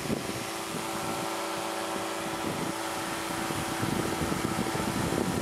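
Powered parachute's engine and propeller running steadily in flight, a constant drone with no change in pitch.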